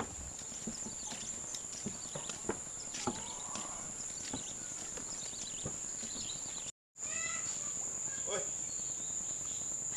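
Footsteps knocking on a wooden plank boardwalk, with a steady high-pitched insect drone behind them. The sound cuts out for a moment about two-thirds of the way through; after that the insect drone goes on, with a few short chirps.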